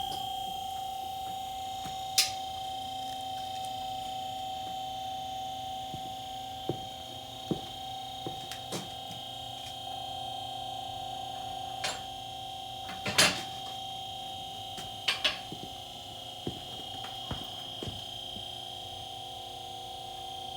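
QuickJack portable car lift's electric hydraulic pump running with a steady hum as it raises the car, with sharp clicks at irregular intervals, the loudest about 13 seconds in.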